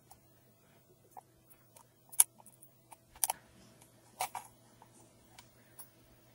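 A few sharp plastic clicks and taps as a handheld capacitor/component tester in a clear plastic case is handled and its test button pressed, starting a measurement; the loudest click comes about two seconds in. A faint steady hum lies underneath.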